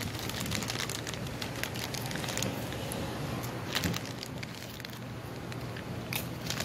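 Someone chewing a burger close to the microphone: a run of small wet clicks and crackles from the mouth, over a steady low hum.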